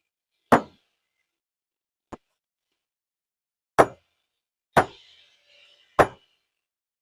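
Hammer blows in stone splitting: four loud, sharp strikes at uneven intervals (about half a second in, then near four, five and six seconds), with one faint click between the first two.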